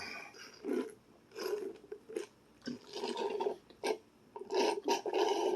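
Close-range eating and table-handling noises: an irregular run of short and longer rubbing and scraping bursts, growing louder near the end.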